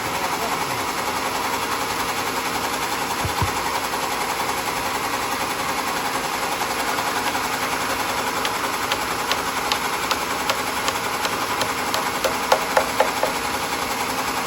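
Sawmill machinery running steadily, with one low knock a few seconds in and a quick series of sharp clicks in the second half.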